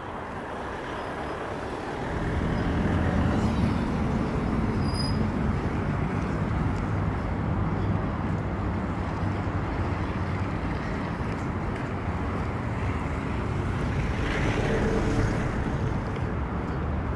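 Road traffic noise: a steady low mix of engine and tyre noise that gets louder about two seconds in.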